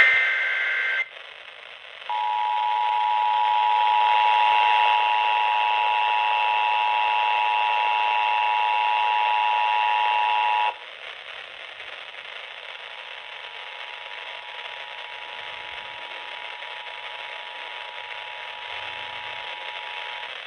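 Emergency Alert System tones: a short burst of the SAME digital header's screeching data, then after about a second the two-tone EAS attention signal sounding steadily for about eight and a half seconds before cutting off sharply. After that comes a fainter radio hiss with a weak steady tone under it.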